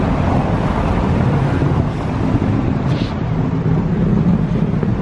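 Wind buffeting the camera's microphone: a steady, low rumbling noise.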